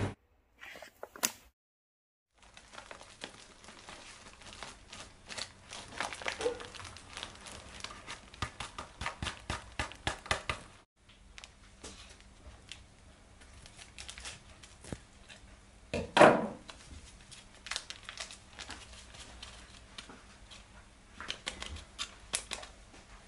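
A plastic bag of bánh xèo flour mix crinkles as it is handled, in a dense crackle through the first half. After a short break come sparser handling sounds at a stainless steel mixing bowl of flour, with one louder knock about two-thirds of the way through, over a faint steady hum.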